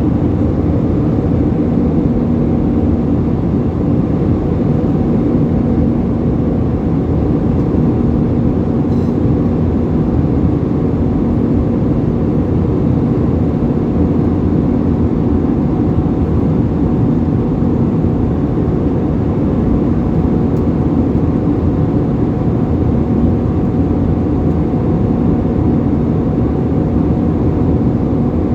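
Airbus A320 cabin noise in flight: a steady low roar of the jet engines and rushing air, with a faint steady hum running through it.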